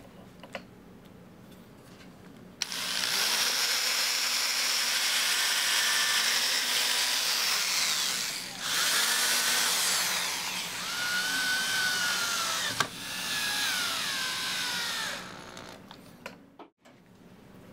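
Power drill running under load in two long runs with a short break between them, its whine wavering in pitch.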